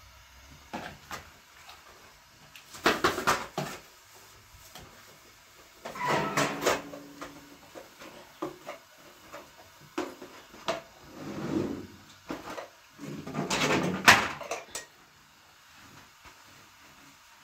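Intermittent knocking and clattering of objects being handled, in several short bursts with pauses between, the loudest about fourteen seconds in.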